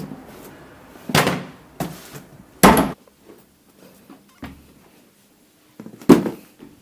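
Three loud thumps spread over about five seconds, the second the loudest, with a few faint knocks between them.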